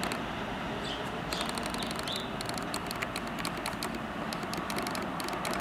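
Steady rumble of an approaching NYC subway train of R160B cars, still some way off, with bursts of quick light clicking and a few short high squeaks over it.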